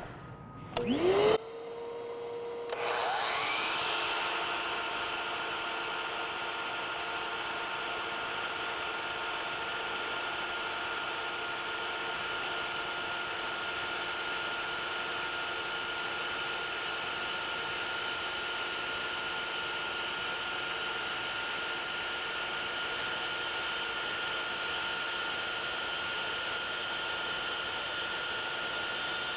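DeWalt FlexVolt brushless miter saw starting with a brief loud burst about a second in, its motor spinning up with a rising whine, then running steadily as the blade is fed very slowly through flexible crown moulding, which catches and stalls the blade if cut fast.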